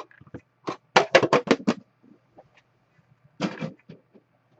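Handling noise on a tabletop: a single sharp tap, then a quick run of about six clicks or knocks, and a brief scraping rustle about a second later.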